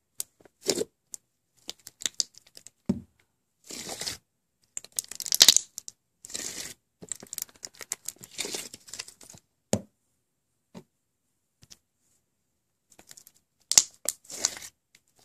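Hands squeezing and pulling a large mass of thick slime, giving sticky crackling and tearing squelches in irregular short bursts. The loudest comes about five seconds in, and there is a near-silent pause a little past the middle.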